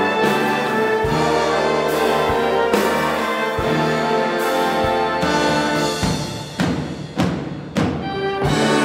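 Symphonic wind ensemble playing: sustained brass and wind chords over low drum strikes, breaking in the last few seconds into a run of sharp accented hits.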